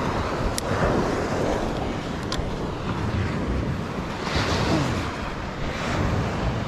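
Wind buffeting the microphone over the wash of surf breaking on the beach, swelling a few seconds in, with two sharp clicks early on.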